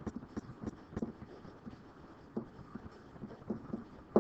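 Stylus tapping and scratching on a screen while handwriting a word: a run of light, irregular clicks, with a sharper click at the very end.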